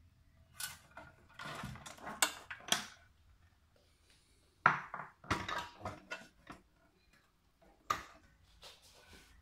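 Clattering, clicks and knocks of a 3.5-inch floppy drive's plastic and metal case and its ribbon and power cables being handled, with the sharpest knock about halfway through and another near the end.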